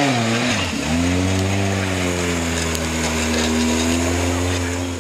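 Engine of a tube-frame off-road trial buggy working up a steep slope. The revs dip sharply a little before a second in, then pick up and hold steady.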